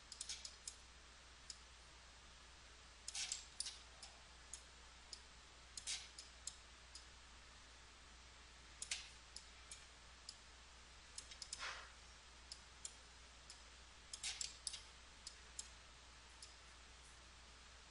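Computer mouse clicking irregularly, single clicks and short clusters of clicks, over a faint steady low hum.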